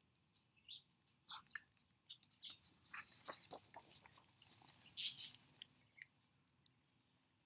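Faint rustling and crinkling of a picture book's paper pages being handled and turned, in scattered small clicks, busiest about four to five seconds in.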